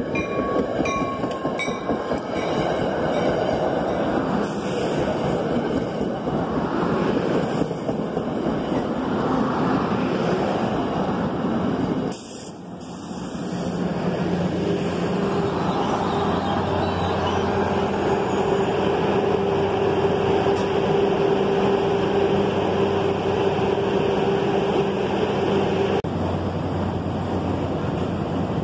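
NJ Transit diesel push-pull commuter train of Comet coaches rolling into the station, wheels running on the rails. Later the ALP-45DP locomotive comes alongside and settles into a steady, even hum, its diesel engine running with the train stopped.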